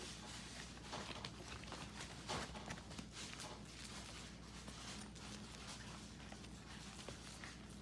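Miniature pinscher puppies eating dry kibble from a plastic bowl: faint, irregular crunching and clicking of chewing and kibble knocking in the bowl, with the patter of small paws moving about.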